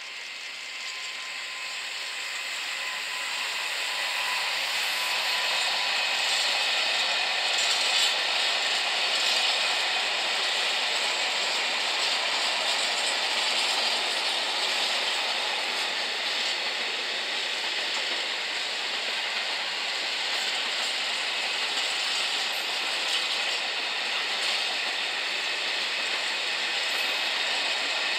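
Container freight train passing, hauled by a Bombardier Traxx DC3 E494 electric locomotive. It grows louder over the first few seconds as the locomotive comes by, then holds a steady rush of wagon wheels on the rails as the container flats roll past.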